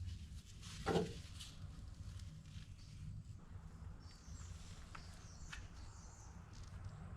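A single knock about a second in, then a few faint light clicks over a low steady hum: small handling noises of workshop work.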